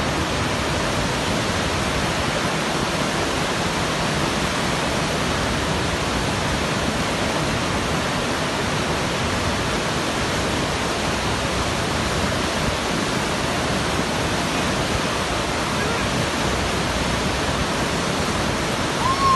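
Steady rushing of river water spilling over a low-head dam spillway and churning in the whitewater below. A short rising-and-falling tone cuts in at the very end.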